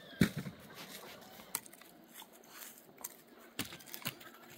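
Close movement noise: a dull thump about a quarter-second in, the loudest sound, then a few sharp clicks and light scraping and rustling.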